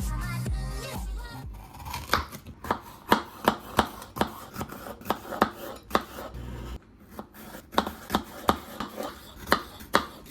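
Knife chopping on a wooden cutting board, a sharp knock two or three times a second, over background music with a bass beat that drops out after the first second and a half.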